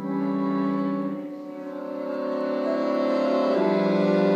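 Held, layered electronic musical tones from a touch-triggered Arduino MP3-shield sound installation, played through a small amplifier. One set of tones starts abruptly and fades after about a second, and a new, louder set enters about three and a half seconds in, overlapping the first.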